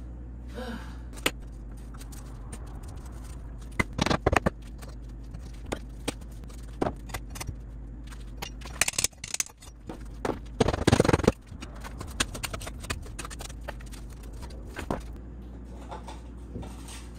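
Hammer striking a chisel to chip old cement chinking out from between cabin logs: scattered sharp knocks and short flurries of strikes with scraping and crumbling cement. The loudest flurry comes about eleven seconds in.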